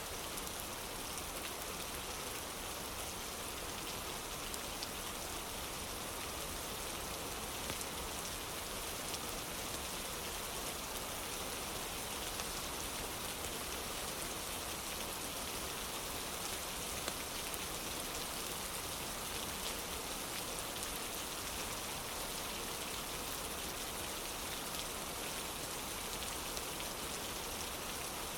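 Steady rain falling on a wooden porch: an even hiss with a few slightly louder drops here and there.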